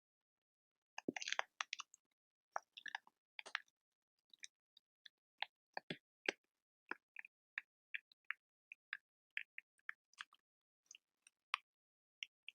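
Quiet, close-miked ASMR crackles: sharp, irregular clicks and crackles, a dense little cluster about a second in and then scattered single ones, with silence between.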